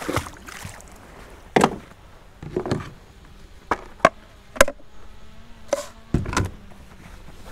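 A splash as a released redfish drops into the water, then a string of sharp knocks and clatter as fishing gear, including a measuring board and a landing net, is handled against a plastic kayak.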